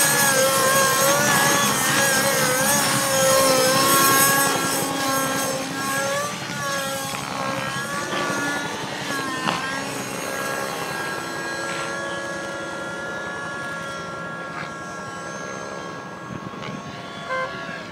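Synergy N5C RC helicopter with a Nova Rossi REX 57 nitro glow engine flying aerobatics, its engine and rotor pitch swinging up and down with the manoeuvres. After about ten seconds the pitch holds steady and the sound grows fainter as the helicopter climbs high.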